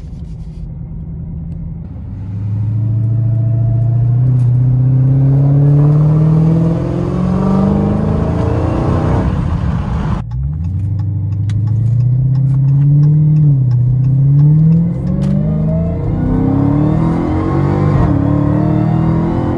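Supercharged 6.2-litre Hemi V8 of a 2016 Dodge Challenger Hellcat under hard acceleration, heard from inside the cabin in Track mode: the engine note climbs and drops back with each upshift of the automatic, with a faint supercharger whine rising alongside. About halfway through the pull breaks off abruptly and a second one climbs through the gears again.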